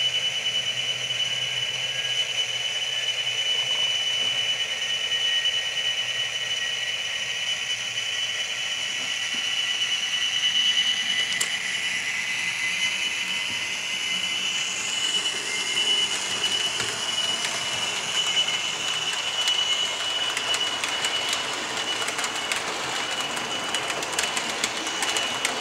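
HO scale model SNCF diesel locomotive with a digital sound decoder playing diesel engine sound through its small speaker, over a steady high whine; the engine note rises as the train gets under way. Quick clicking of the wheels over the track comes in near the end.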